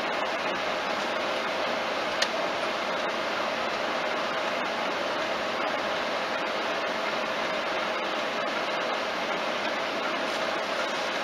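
Steady cabin noise of a car driving at highway speed, about 75 km/h: an even rush of tyre and wind noise with no change in pitch. A single sharp click comes about two seconds in.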